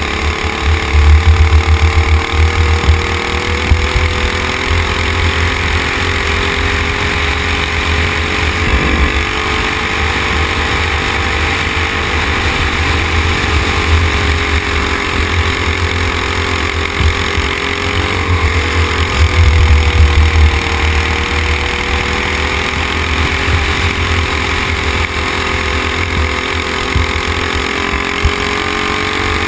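Racing kart engine running hard on track, heard from the kart itself, its note sagging and climbing back slowly through the corners, with a heavy low rumble of wind on the microphone underneath.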